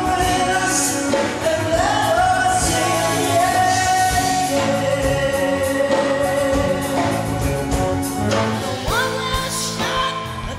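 Live rock band with electric guitars, bass, keyboards and drums, a singer holding long sung notes over it. Near the end the music cuts to a different song.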